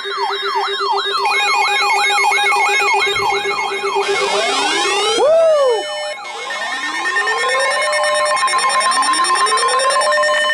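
Several electronic sirens sounding at once: a fast yelp sweeping up and down about three times a second, then repeated rising wails at several pitches, with steady alarm tones held underneath.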